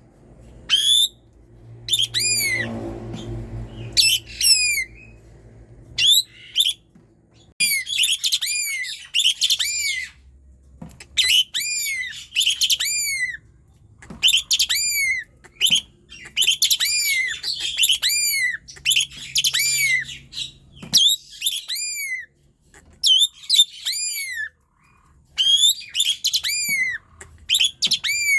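Asian pied starling (jalak suren) singing persistently in short, loud phrases of repeated arching, whistled notes with brief pauses between them.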